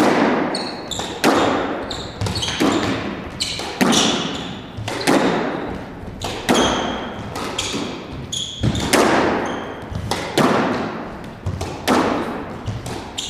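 Squash rally: the ball smacked by racquets and struck against the court walls in a fast run of sharp hits, about one a second, each ringing in the enclosed court.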